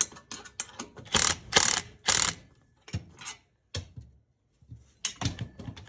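Wrench work on the bolts of a muffler assembly: a run of sharp metallic clicks and rattles, with three louder rasping strokes a little after a second in, then a pause before more clicking near the end.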